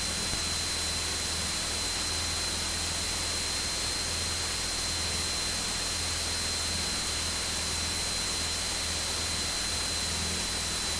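Steady hiss with a thin, steady high whine and a faint low hum underneath: the background of a light aircraft's headset intercom audio feed in flight, with no one talking.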